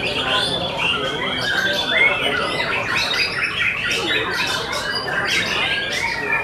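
White-rumped shamas singing, several at once: a dense, steady weave of overlapping whistled phrases with quick rising and falling glides.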